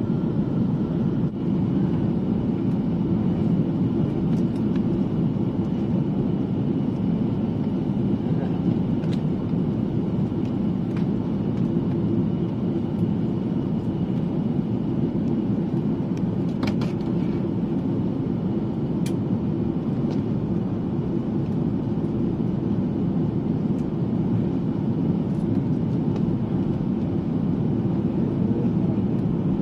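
Steady cabin roar of an Airbus A330 airliner in flight, engine and airflow noise heard from inside the cabin, with a few faint clicks about halfway through.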